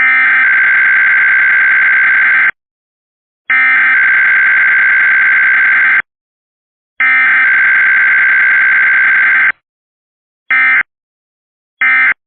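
Emergency Alert System SAME digital header tones: three bursts of data tones, each about two and a half seconds long with about a second between them, then two short end-of-message bursts near the end.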